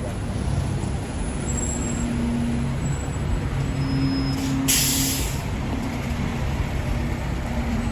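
Street traffic with a heavy vehicle's engine running as a low hum, and a short air-brake hiss of about half a second around the middle.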